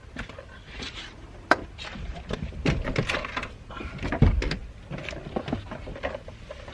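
Scattered knocks, clicks and clunks of someone moving about and handling things, with a sharp click about a second and a half in and a heavier low thump about four seconds in.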